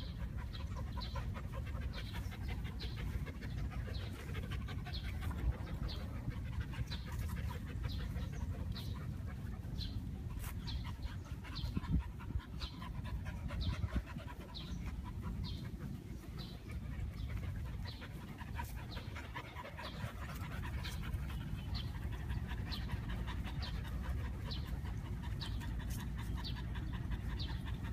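Dogs panting, with a steady rhythmic chirping about twice a second.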